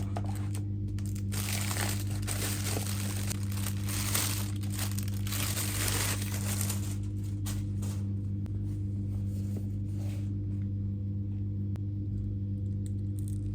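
Wrapping or packaging crinkling and rustling as it is handled, densest for the first several seconds and then trailing off into a few scattered crackles. A steady low hum runs underneath.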